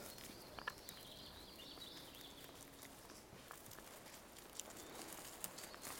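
Faint rustling and light crackles of movement through dry forest leaf litter, scattered and irregular, with a faint high warbling sound in the distance during the first half.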